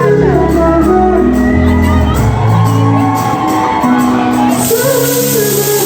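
Background pop music with singing, steady beat and sustained chords.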